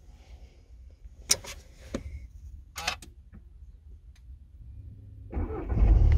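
Several sharp clicks of a Skoda Kodiaq's sticking start-stop button being pressed. About five seconds in, the 2.0 TDI diesel cranks and catches, running on loudly: the engine finally starting despite the failing button.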